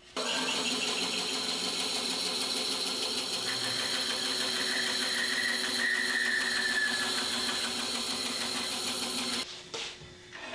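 Band saw switched on and running steadily. About three seconds in, a higher whine rises over the motor for a few seconds as the blade cuts through a hardwood board. The saw is switched off and stops abruptly about nine and a half seconds in.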